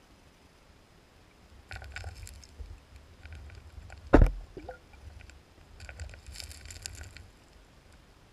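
Water splashing and sloshing in two crackling spells, one about two seconds in and one about six seconds in, with a single sharp, loud knock just after four seconds.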